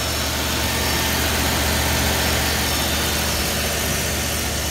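Kohler 60 kW standby generator's engine running at a steady, constant speed, carrying the house's load after the transfer switches have switched over in a power-outage test. It sounds a little louder than usual because the enclosure door is off.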